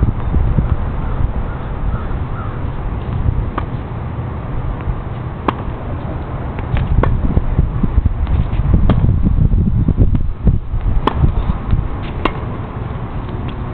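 Tennis rally: sharp racket-on-ball hits, the first about five seconds in, then every one and a half to two seconds, with fainter ball bounces between, over a loud steady low rumble.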